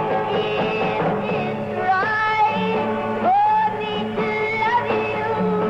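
A woman singing a slow country song with a band: long held notes that slide between pitches, over guitar and a stepping bass line.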